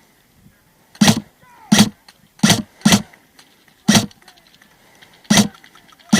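Airsoft rifle firing six single shots at an irregular pace, each a short sharp crack.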